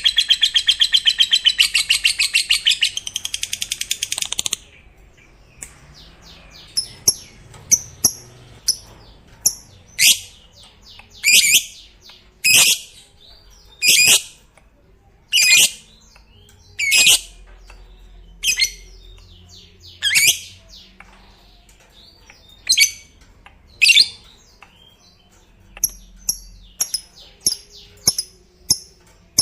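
Lovebird's long, rapid chattering trill (ngekek) that stops about four seconds in, followed by single sharp, high-pitched chirps about every one and a half seconds, and quicker, fainter chirps near the end.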